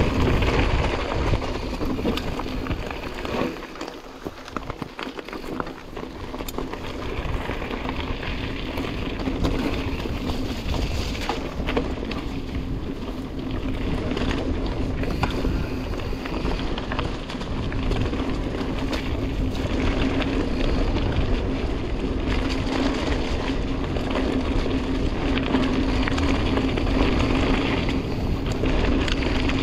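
Mountain bike ridden along a singletrack trail: wind buffeting the microphone, tyres rolling over dirt and roots, and frequent knocks and rattles from the bike, over a steady low hum. Briefly quieter about four seconds in.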